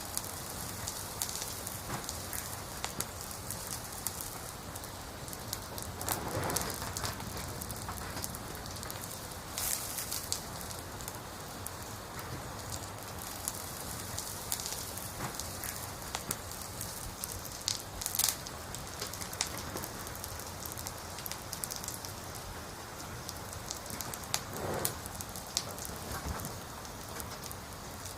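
Burning firewood of a campfire crackling: a steady hiss full of small crackles, with a few louder pops scattered through.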